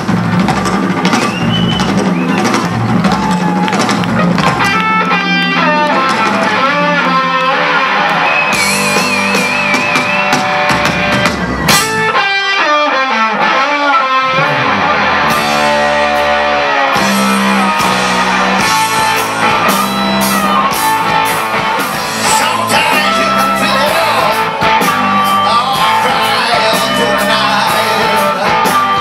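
Live rock band playing: electric guitars, bass guitar and drum kit, with a singer. The bass and drums drop out briefly about twelve seconds in, then come back.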